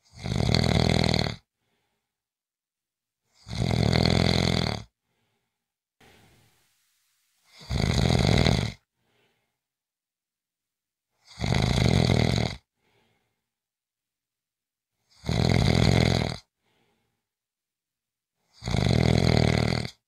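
A person snoring in a steady rhythm: six snores about every three and a half to four seconds, each lasting just over a second, with silence between them.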